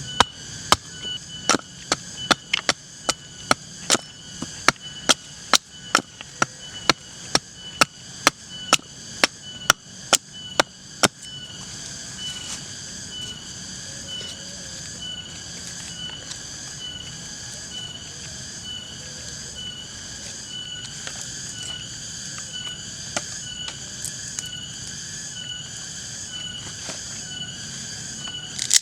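Sharp, hard knocks of wood being chopped, about two to three a second, stopping about eleven seconds in. A steady, evenly repeating high chirp runs underneath, and a high drone of insects fills in after the chopping stops.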